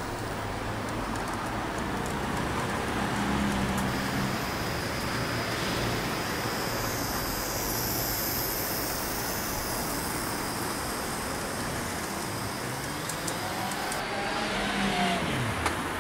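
H0-scale model trams running on a layout: a steady whirring rumble of small electric motors and wheels on the track, with a whine that falls in pitch near the end.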